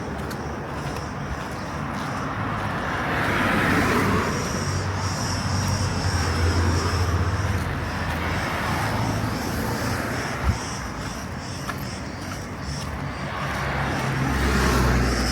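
Street ambience: vehicles passing, their engine hum steady underneath and their tyre noise swelling and fading three times. A faint high insect buzz comes in about a third of the way through, with a single short click near the two-thirds mark.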